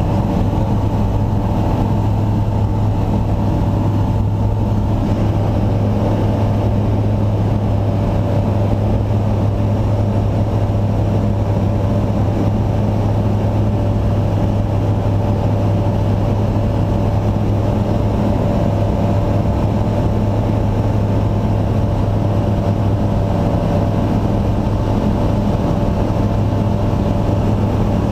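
An engine running steadily at a constant speed: a loud, even, low drone whose pitch does not change.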